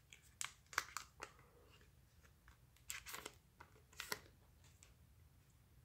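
Foil wrapper of a small trading-card pack crinkling and tearing as it is opened, in short faint crackles: a few in the first second or so, then louder bunches around three and four seconds in.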